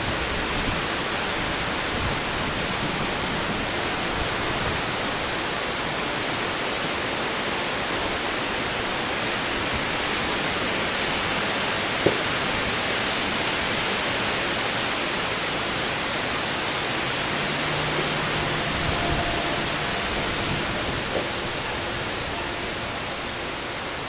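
Steady, even rushing hiss with no siren tone in it, and a single sharp click about twelve seconds in.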